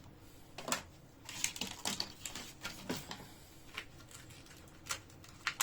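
Irregular light clicks and short rustles of hands handling a boxed Western Digital SSD and its packaging.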